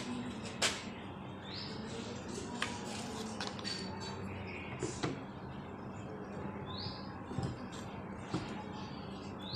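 Scattered sharp clicks and knocks of tools and pipe fittings being handled over a steady background hum, with a few short high chirps.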